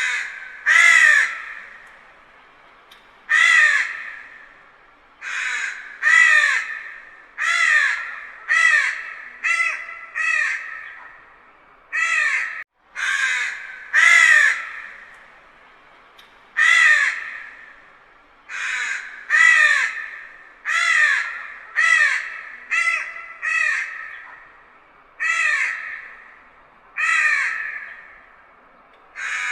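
Crows cawing: a long series of harsh caws, roughly one a second and sometimes in quick pairs, each trailing off with an echo.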